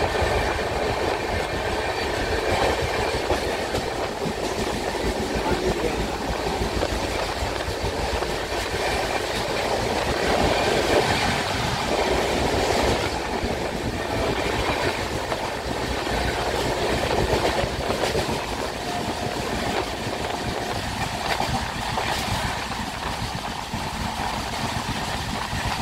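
Train running at speed, heard from aboard a coach: a steady rumble and rushing wheel-on-rail noise with clickety-clack over the track.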